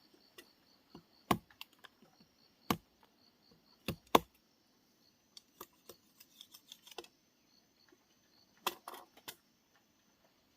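Irregular sharp clicks and knocks of hands working on a handmade bird trap. A few louder knocks come in the first half, lighter ticks follow, and there is a quick cluster near the end, over a faint pulsing insect chirp.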